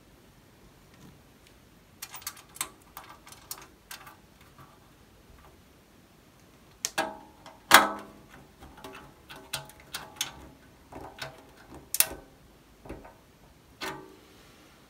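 Screwdriver work on the sheet-steel base of a Commodore PET 2001 case as the rubber feet are screwed down: irregular clicks and scrapes, then a few louder metallic knocks that ring briefly, the loudest about halfway through.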